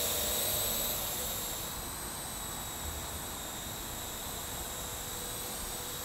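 Parrot AR.Drone 2.0 quadcopter in flight, its four electric motors and propellers giving a steady high-pitched whine, which eases a little in level a second or two in.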